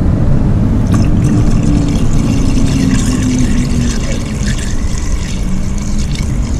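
Dexcool 50/50 antifreeze being poured from a jug into the coolant reservoir, a steady pour with some splashing over a heavy low rumble.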